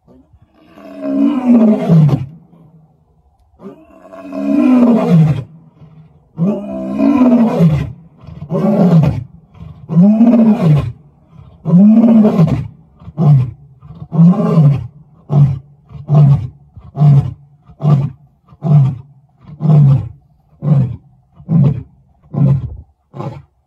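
Male lion roaring: a handful of long, deep roars that grow shorter, then a long run of short grunts, about three every two seconds.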